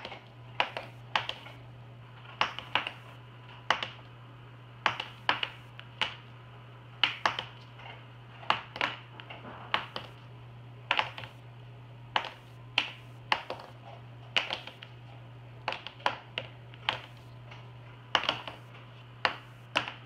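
Plastic Expo dry-erase markers being flipped and landing on a hard, polished tabletop: sharp, irregular clacks, about one or two a second and often in quick pairs, over a steady low hum.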